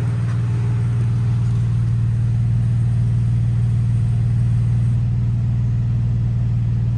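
2013 Dodge Challenger's 3.6-litre Pentastar V6 running at a steady idle, an even low hum with no revving.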